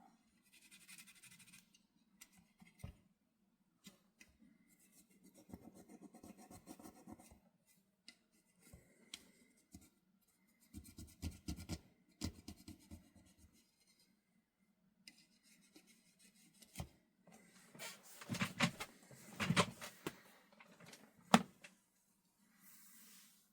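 Small hand tools rubbing, scraping and clicking against a graphics card's circuit board as bulged, leaking capacitors are desoldered and pulled out. The work comes in irregular bouts, busiest after about 17 seconds, with one sharp click near the end as the loudest sound.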